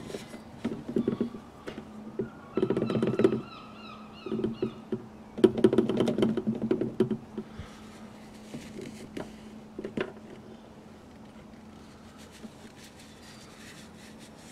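A cloth rag rubbing and rustling along a plastic oil hose as it is drawn out of a plastic bottle, in short bursts with small knocks and clicks of the hose and bottle. The handling noise dies down after about ten seconds.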